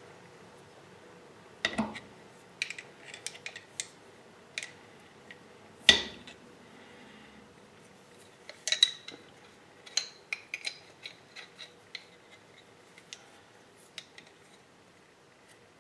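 Two steel adjustable wrenches clinking and knocking against each other and a brass flare fitting as they are set on it and turned to tighten it, in scattered clicks with short ringing; the loudest knock comes about six seconds in.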